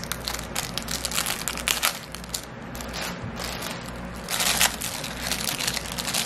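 Clear plastic packaging bag crinkling and crackling as it is handled and worked open, in irregular bursts with a louder flurry about four and a half seconds in.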